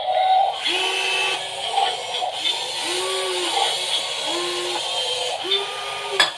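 Small electric gear motors of a 1/16-scale RC excavator model whining in short runs, about one a second, each starting with a rise in pitch, holding and dropping away as the motor stops.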